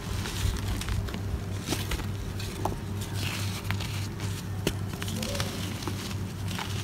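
Hands crumbling chunks of dry, crunchy floor material into powder: irregular sharp crackles and crunches with grit and dust trickling through the fingers, over a steady low hum.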